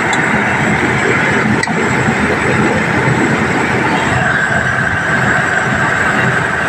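GMC Savana van's engine idling steadily, with a faint click about a second and a half in and a steady high whine joining about four seconds in.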